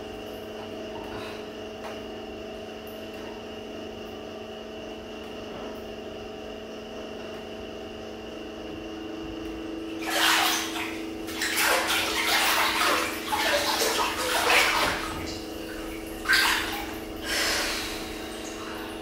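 Bathwater splashing and sloshing in a filled bathtub, moved by hand, in irregular bursts starting about halfway through, over a steady hum.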